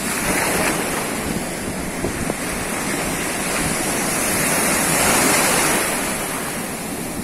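Ocean surf washing and breaking in the shallows, swelling louder as a wave breaks about halfway through, then easing.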